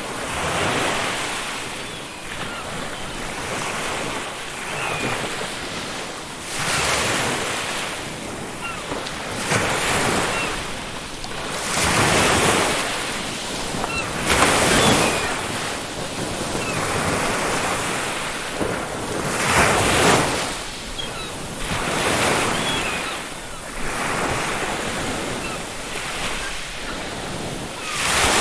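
Ocean surf washing onto a beach, breaking in surges every few seconds, with faint short seagull calls in the background.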